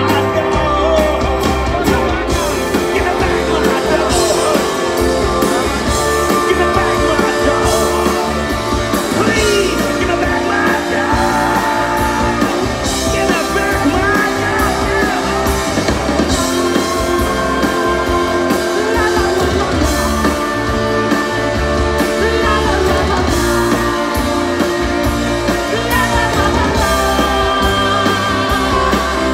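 Live rock band playing electric guitars, electric bass and drums, with several men singing the chorus together into microphones.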